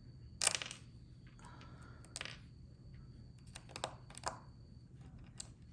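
Small parts of a fidget slider and its magnets clicking and tapping as they are handled and fitted during assembly: about five separate sharp clicks, the loudest about half a second in.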